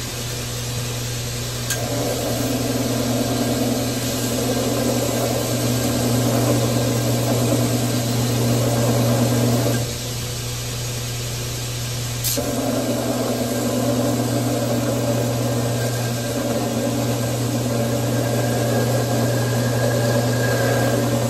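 Electric hydraulic pump of a 12-ton forging press humming steadily. Twice, just after a click, it takes on a heavier, noisier sound for about eight seconds, as a pressing stroke is made.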